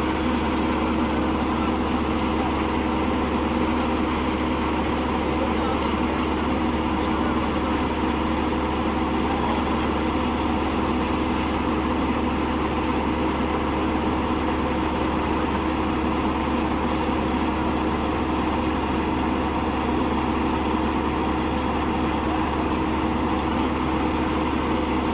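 Small engine of a rice reaper machine running steadily at a constant speed, with a steady droning tone.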